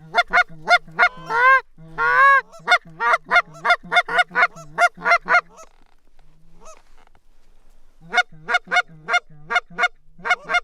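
Rapid series of loud goose honks and clucks, about four a second, each breaking from a low note up to a higher one. The calling stops for a couple of seconds around the middle, then resumes.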